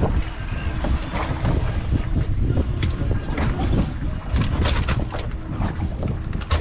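Wind buffeting the microphone on an open boat deck at sea, over a steady low rumble. From about four seconds in, a quick run of sharp clicks and taps.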